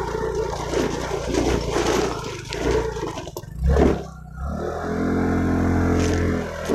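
Motorcycle engine running on a rough stony dirt track, mixed with rattle and wind noise. About four seconds in there is a heavy knock, and then the engine holds a steady note for about two seconds near the end.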